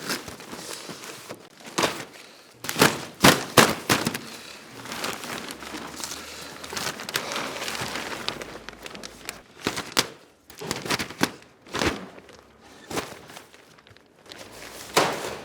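Plastic damp-proof sheeting rustling and crinkling as it is handled and cut, with irregular sharp knocks and thuds, a cluster of the loudest about three seconds in.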